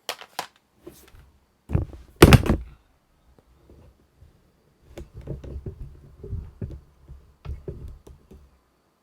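Hands and tools knocking and rubbing on an opened MacBook Pro's underside while the battery connector is worked loose: a few sharp clicks at the start, a loud thunk about two seconds in, then a stretch of low rubbing with several knocks.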